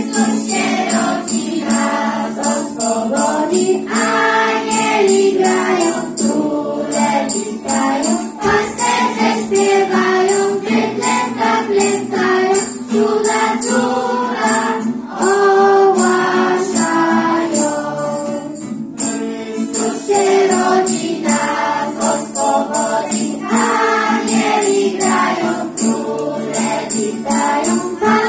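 Children's choir singing a Christmas carol, with jingle bells shaken in a steady rhythm.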